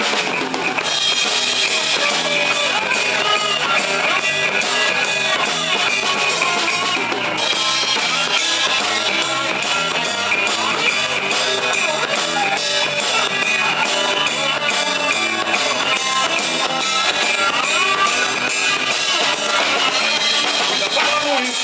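Instrumental break of a rock song: electric guitar with a steady drum-kit beat.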